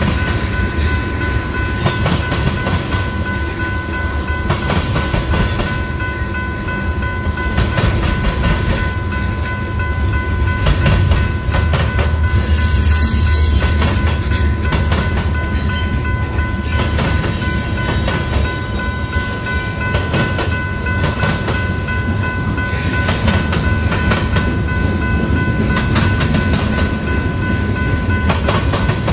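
Union Pacific freight cars rolling past, their steel wheels clattering in rapid clicks over the railroad diamond crossing above a steady deep rumble. A steady high-pitched ringing tone sounds underneath.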